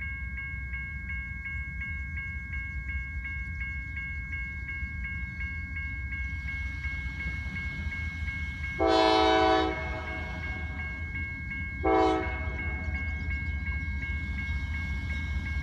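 Approaching Norfolk Southern diesel freight locomotives sounding the horn: one blast of about a second, then a short blast about three seconds later, over the low rumble of the train. A grade crossing bell rings steadily about three times a second under it.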